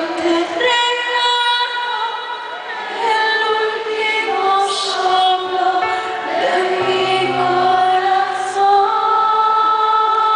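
Female singer performing a ballad live over keyboard piano accompaniment, heard through an arena sound system, with long held notes.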